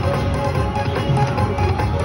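Slot machine's free-games bonus music, a continuous electronic tune with a steady pulsing beat, playing while the reels spin through a free game.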